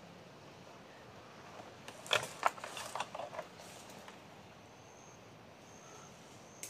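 Rustling plants and handling clicks as a tablet-sized object is pulled out of undergrowth: a cluster of sharp knocks and rattles begins about two seconds in and lasts over a second. A faint, high thin note repeats three times near the end.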